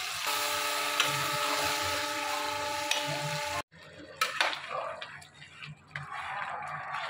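Spinach purée and potatoes sizzling in a metal pan, with a steady hum of several tones over the sizzle. This stops abruptly a little over halfway in. Then a metal slotted spoon stirs water into the pan, clinking against the side with sloshing and splashing.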